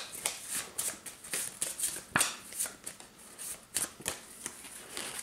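A small deck of Citadelles character cards being shuffled by hand: an irregular run of quick card flicks and snaps.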